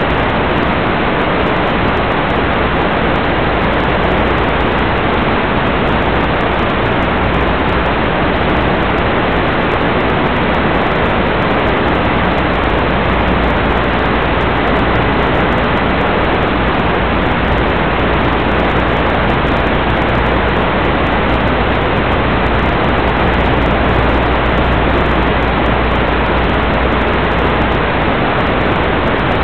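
Steady hiss of static from the analog FPV video receiver's audio channel, unchanging throughout.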